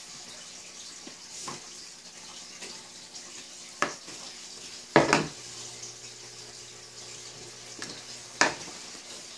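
Three sharp knocks of a round metal baking pan bumped against the wooden counter as dough is stretched over its rim. They come a few seconds apart, and the middle one, about five seconds in, is the loudest. Under them runs a steady hiss.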